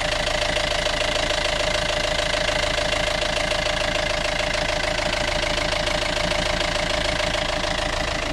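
Sailing yacht's inboard diesel engine running steadily, heard straight through its open engine compartment under the companionway steps.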